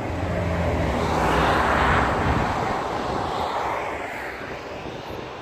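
A vehicle passing at freeway speed. The rush of its tyres and wind swells to a peak about two seconds in and then fades away.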